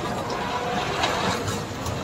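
Caterpillar tracked excavator running steadily, with a faint steady whine over the engine as the bucket on its rototilt is moved.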